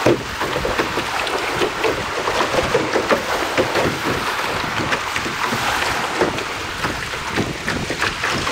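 Rushing, splashing whitewater of a shallow, rocky rapid around a canoe running through it: a loud, dense wash of water with many short splashes.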